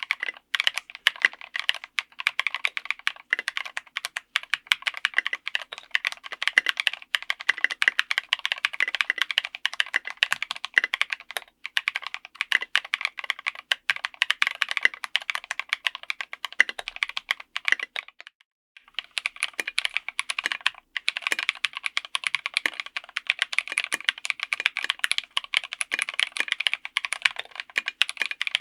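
Fast continuous typing on a mechanical keyboard with keycaps fitted for a sound test. It stops briefly about two-thirds of the way through, then resumes with a sharper, brighter clack, as if on a different keycap set.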